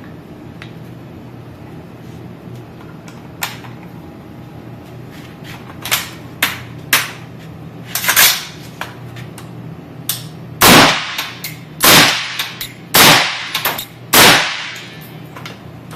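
Suppressed AR-15 pistol with an Adams Arms piston conversion firing: a few lighter cracks, then four loud shots about a second apart. The gas setting is not on the suppressor position, and the gun gives a lot of blowback.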